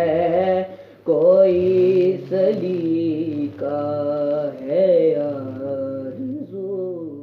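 Naat, an Urdu devotional song in praise of the Prophet, sung by a solo voice in long, drawn-out melismatic phrases, with a brief break about a second in; the singing fades out near the end.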